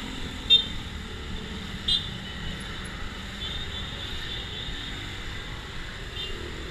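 Steady background rumble of street traffic, with two brief, sharp, high-pitched clicks about half a second and two seconds in, and a few fainter ones later.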